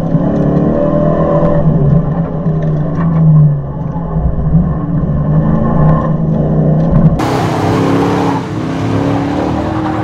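Dodge Dakota R/T's 5.9-litre V8 engine revving up and down as the truck is driven hard. About seven seconds in, a loud rushing noise suddenly joins it.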